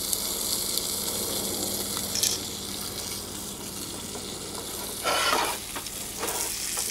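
Porterhouse steak sizzling steadily in a very hot pan, just turned over to sear its second side. A brief clatter cuts in about five seconds in.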